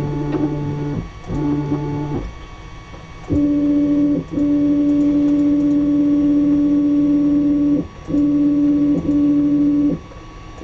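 Stepper motors of a hobby CNC router whining as the gantry and spindle head are jogged into position over a Z-probe touch plate, in separate moves that start and stop. A lower hum for the first two seconds gives way, about three seconds in, to a stronger, higher steady whine, broken by short pauses near four and eight seconds, before stopping about ten seconds in.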